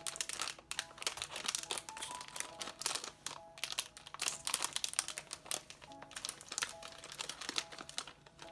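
Crinkling and rustling of a foil blind bag being handled and opened by hand, a dense run of small crackles, over light background music.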